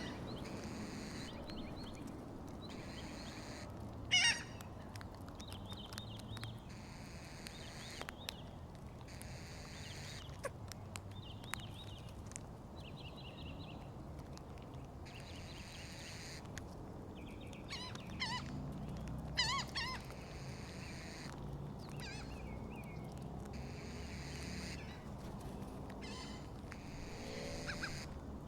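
Gulls and crows calling now and then, in short harsh calls, over a steady low background noise. The loudest calls come about four seconds in, and again as a short cluster around eighteen to twenty seconds in.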